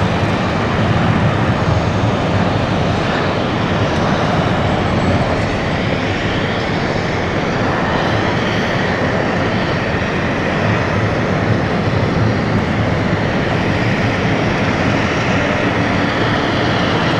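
Boeing 747-400's four turbofan engines at takeoff thrust as the jet lifts off and climbs away: a loud, steady jet noise, heaviest in the low end, with a faint shifting whine on top.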